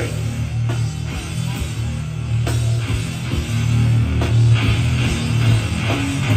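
Hardcore band playing live and loud: distorted guitars, bass and drums with a heavy, boomy low end and occasional hard drum hits.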